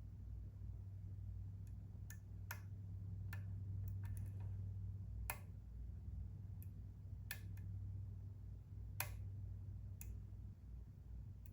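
Lock pick and tension wrench working inside a Kwikset SmartKey Gen 2 lock: about a dozen short clicks at irregular intervals, some seconds apart, over a steady low hum.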